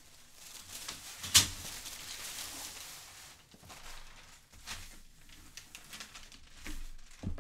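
Sheets of tissue sewing-pattern paper and dotted pattern paper rustling and sliding on a table as they are shifted and smoothed flat by hand, with one sharp knock about a second and a half in.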